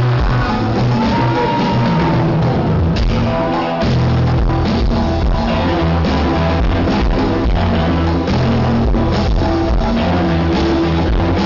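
Live rock band playing loud, with heavy bass and drums. The low end drops out briefly about four seconds in, then the full band comes back in.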